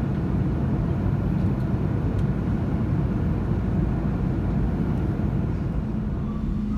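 Airliner cabin noise in flight: the steady low roar of the engines and airflow. A steady low hum joins it near the end.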